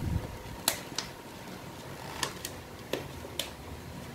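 Handling a plastic clamshell tub of raisins with a spoon over a steel bowl of rice: about eight light, sharp clicks and taps at irregular spacing, over a faint steady hum.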